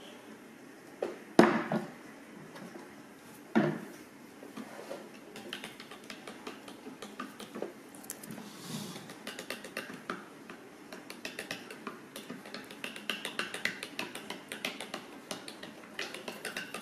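Two knocks of things being put down, then a white plastic spoon clicking and scraping inside a Zoku Slush & Shake Maker cup as syrup and water are stirred into slush. The quick scrapes come thicker toward the end.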